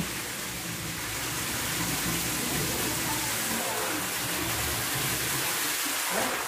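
Water running and splashing steadily as metal pots and plastic cans are filled.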